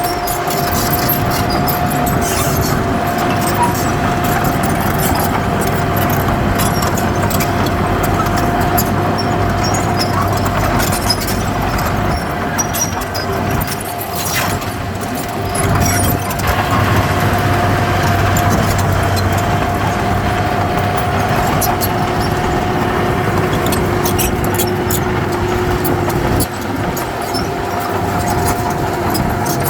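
Heavy diesel earthmoving machinery running steadily: a low engine rumble with a constant whine over it and scattered clanks.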